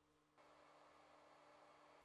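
Near silence: a faint, steady hiss comes in about half a second in and holds.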